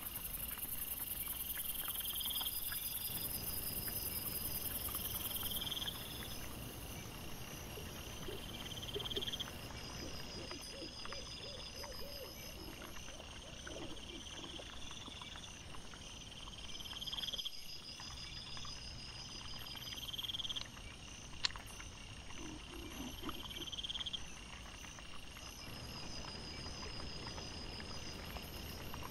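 Night insects chirping in a chorus: a high pulsing phrase that repeats about every two and a half seconds over a steady buzz, with a few short low pulsed calls mixed in around the middle.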